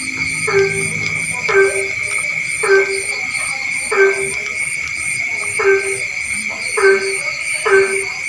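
A frog calling over and over, about once a second: seven short calls, each a brief low note. Behind it runs a steady high-pitched insect chorus, with a faster, higher pulsing insect call above it.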